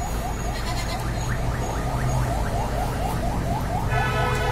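A rapid repeating electronic chirp, about four to five short rising chirps a second, like a vehicle alarm, over a low steady hum. A held horn-like tone joins near the end.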